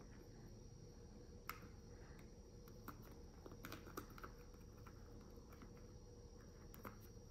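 Near silence with a few faint clicks and taps as fingers handle a clear plastic breast-pump milk cup, pressing a cover over its pour hole.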